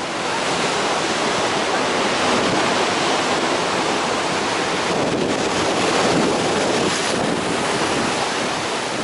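Pacific Ocean surf breaking and washing over shoreline rocks, a steady rushing wash that swells and eases, with wind buffeting the microphone.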